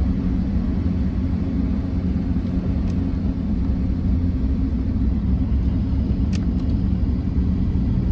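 Steady low rumble of a car driving, heard from inside the cabin: engine and tyres running on a snowy road.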